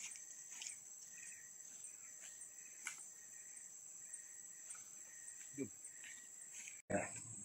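Insects in tropical forest keeping up a steady high-pitched chirring drone, with scattered crunches of footsteps on dry leaf litter. Near the end everything cuts off suddenly.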